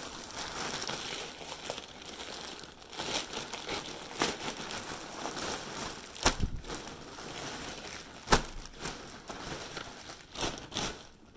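Plastic shipping mailer and clear plastic bag crinkling and rustling as a package is torn open and unpacked, with a few sharp cracks of plastic, the loudest about eight seconds in.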